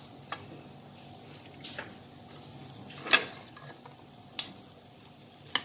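Metal spoon scraping and clinking against a kadai while scooping roasted black chickpeas: a handful of separate knocks and scrapes, the loudest about three seconds in, over a faint steady hum.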